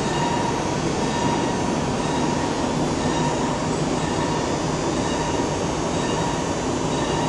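Large KU101 CNC vertical turning lathe running: a steady, dense mechanical noise with a thin steady whine.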